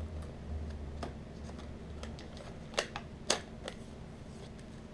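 Plastic-and-cardboard lure package being handled and pried open: scattered crinkles and small clicks, with a couple of sharper snaps about three seconds in.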